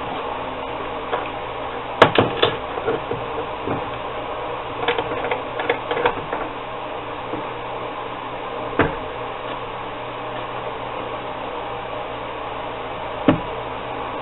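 Sharp metallic knocks and clicks from a small metal clamp being fitted and tightened on a knife blade. They come scattered, the loudest about two seconds in, a cluster a few seconds later, then single knocks near the end, over a steady background hum.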